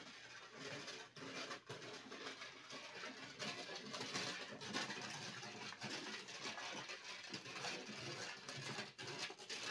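A spoon stirring milk and sugar in a cooking pot: an irregular swishing and scraping, a little louder from about three and a half seconds in.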